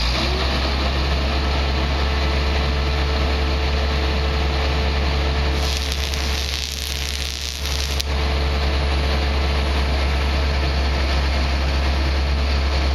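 A steady low engine drone with a broad rushing noise over it. From about six to eight seconds in, a brighter hiss rises over the drone and then cuts off.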